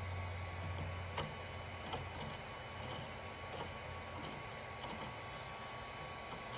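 Faint, irregular light clicks and taps as plastic filament is fed by hand into a Creality Ender 3 V2's extruder and its spring lever is worked. Underneath is a steady hum with a thin high whine; a low part of the hum stops about four seconds in.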